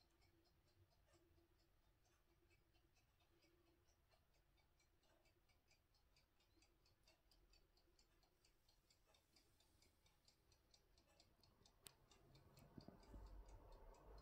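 Near silence, with very faint, evenly spaced ticking. A soft click comes about twelve seconds in, and faint low noise builds near the end.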